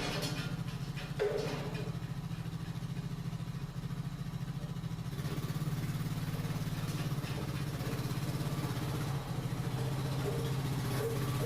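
An engine running steadily with an even low pulse, with one brief knock about a second in.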